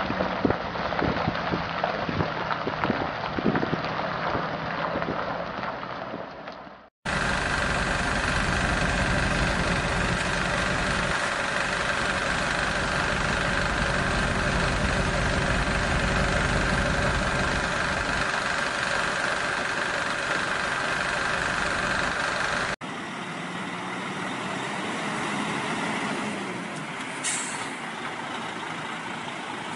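Sound effects of a heavy diesel vehicle, spliced together: a crackling noise with clicks that fades out, then a heavy diesel engine running steadily, cutting to a quieter engine sound with a short air-brake hiss near the end.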